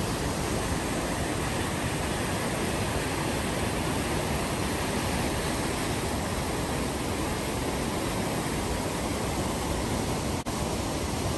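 Steady roar of whitewater pouring over a rocky river fall, with one brief break about ten seconds in.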